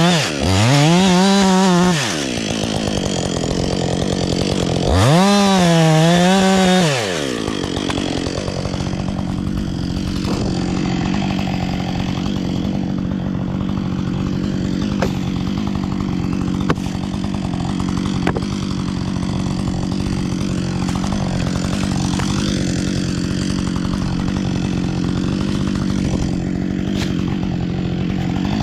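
Two-stroke chainsaw cutting wood, its engine note dipping and recovering under load twice in the first seven seconds. It then runs on steadily and more quietly, with a few faint clicks.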